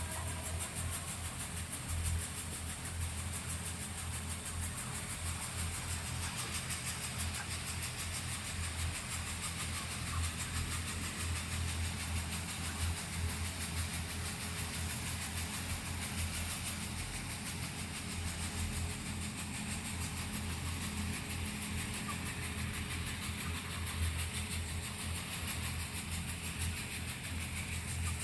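A steady low mechanical hum, like a motor or engine running evenly.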